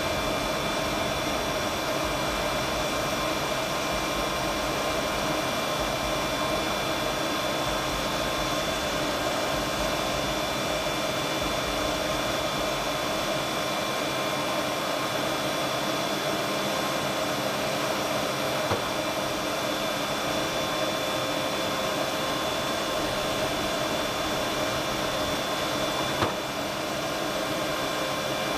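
Running machinery gives off a steady whine and hiss, with several held tones in it. Two short knocks cut across it, one about two-thirds of the way through and a louder one near the end.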